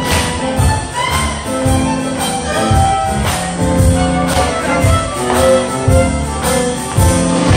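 Live contra dance band music: fiddle and keyboard playing a dance tune over percussion with a steady beat.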